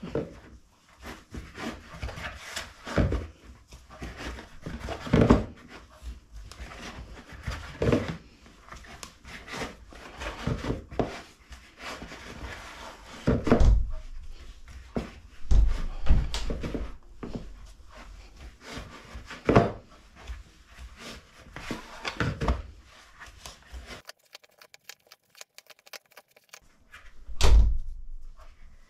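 Bread dough being kneaded by hand in a mixing bowl: irregular dull thumps and knocks every second or two as the dough is pushed and folded. The working pauses briefly about three-quarters through, then a heavier thump comes near the end.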